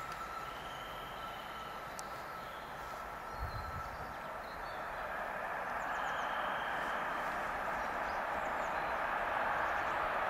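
Container freight train's wagons rolling past on the rails: a steady rushing noise that grows louder from about halfway through.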